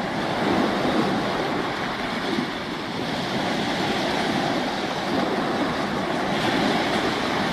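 Choppy water washing and wind on the microphone: a steady rushing noise with no distinct events.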